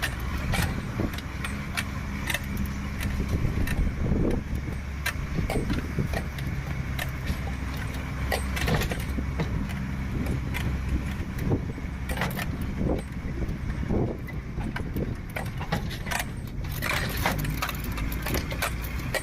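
Bus engine running steadily under way, with frequent rattles and knocks from loose fittings as it travels a rough hill road.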